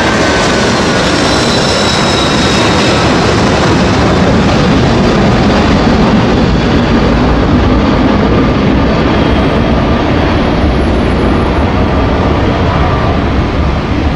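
Boeing 747-400F freighter's four jet engines at takeoff power: a loud, continuous roar with high whines that slowly fall in pitch as the aircraft climbs away, easing slightly near the end.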